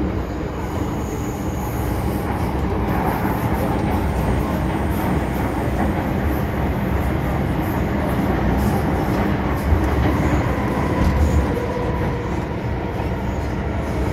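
Inside an MTR M-Train electric metro carriage in motion: a steady low rumble of wheels on the track and running gear, with faint steady whining tones over it.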